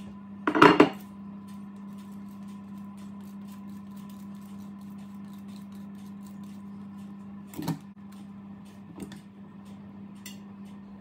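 A ceramic oven dish set down on a stone worktop with a loud knock, then a block of Parmesan grated on a hand grater into the dish, with faint scraping ticks and a second, lighter knock about three-quarters of the way through. A steady low hum runs underneath.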